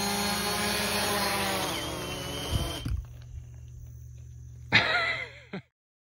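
DJI Mavic Pro quadcopter's propellers whining with a hiss as it hovers, the pitch dropping after about a second. Two thumps come about halfway, then the whine gives way to a quieter low hum. Near the end there is a short loud sound with a wavering pitch before everything cuts off.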